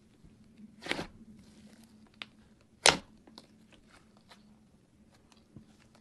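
Fluffy white slime squeezed and pressed by hand, crackling and popping with small clicks, with two louder crunchy pops about one second and three seconds in.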